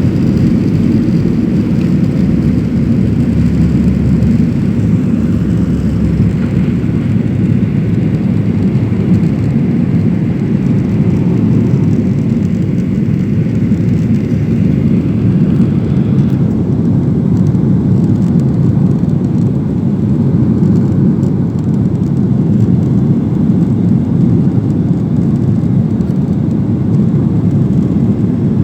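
Steady jet engine and airflow noise heard inside the cabin of a GOL Boeing 737 during takeoff. A faint higher whine drops away about halfway through.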